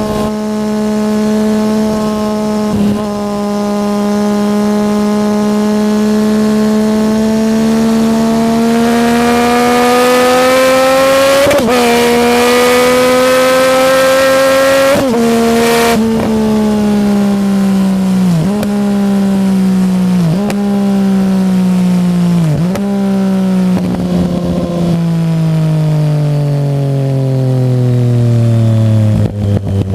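Yamaha MT-09 three-cylinder engine through an Arrow aftermarket exhaust, held at high revs with the pitch slowly creeping up. The pitch then drops in several steps and falls away to a low rumble, with choppy popping near the end.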